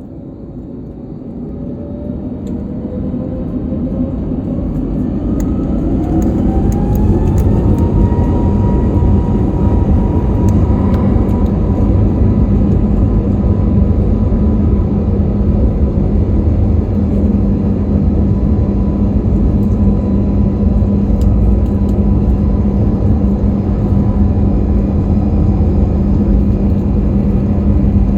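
Airbus A321's jet engines spooling up to takeoff thrust, heard from inside the cabin: a whine that rises in pitch and loudness over the first several seconds, then holds steady over a loud, continuous rumble of the takeoff run.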